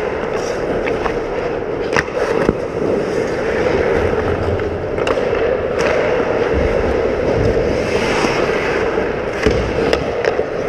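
Ice hockey play heard from inside the goal: skate blades scraping and carving the ice over a steady hum, with several sharp clacks of sticks and puck at intervals.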